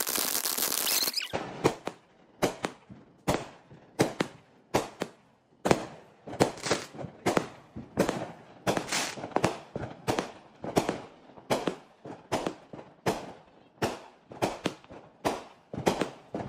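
Fireworks: a ground fountain spraying with a steady hiss for about the first second, then aerial fireworks going off in a long, regular run of sharp bangs, roughly two a second.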